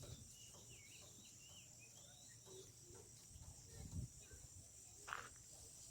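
Faint, steady high-pitched insect chorus, typical of crickets, with a few soft chirps and a low knock about four seconds in.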